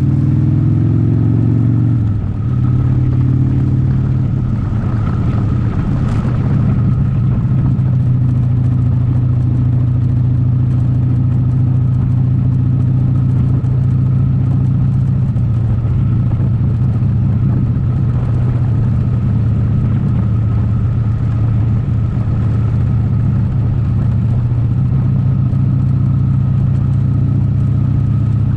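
A motor vehicle's engine running steadily, with a brief change in its pitch about two seconds in.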